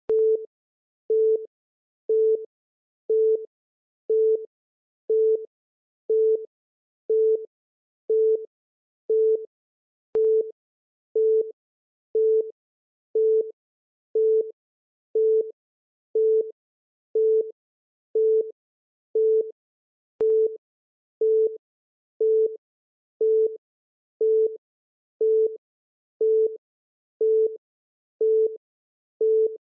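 Electronic countdown-timer beep repeating about once a second: one short, steady, mid-pitched tone each time, evenly spaced.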